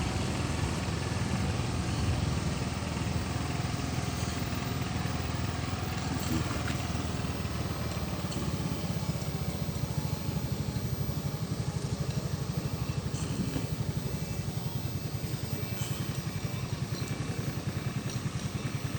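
A small engine running steadily, its low beat pulsing evenly and becoming more regular about halfway through.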